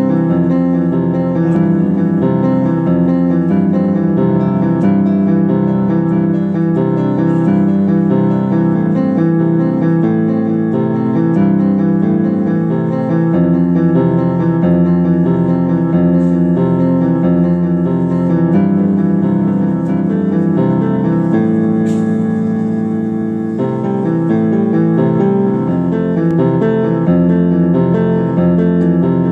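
Piano music: held chords over low bass notes that change every few seconds.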